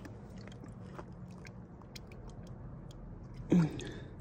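Scattered small clicks and crackles of a crystal and loose rock debris being handled, with one short, loud, voice-like sound falling in pitch about three and a half seconds in.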